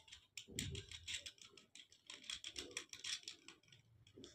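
Light, irregular metal clicks and rattles as nuts and washers are turned by hand onto the studs of an electric water heater's heating-element flange, with a few soft knocks.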